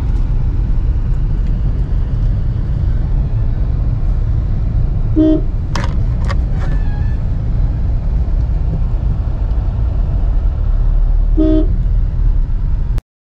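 Steady low rumble of a car driving, heard from inside the cabin, with a vehicle horn giving two short toots, about five seconds in and again near the end. A few sharp clicks come in between.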